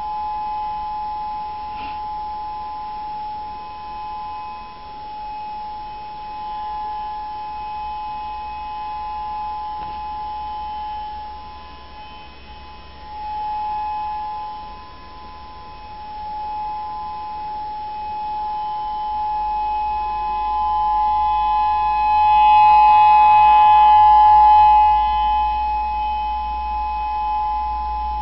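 Whelen 3016 electronic outdoor warning siren sounding a steady two-tone alert in its monthly test. The pitch holds level while the loudness swells and fades every few seconds. It is loudest a little past two-thirds of the way through.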